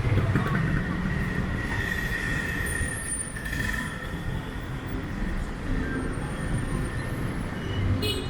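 Street traffic rumbling steadily, with a high steady squeal from about half a second in that lasts some three seconds.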